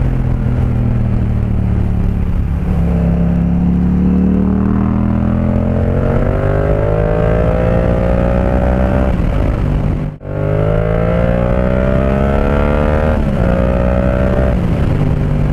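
Yamaha MT-07's parallel-twin engine through an Akrapovic 2-in-1 carbon exhaust with the baffle removed, accelerating on the road: the engine note rises in pitch twice, with a brief break in the sound about ten seconds in.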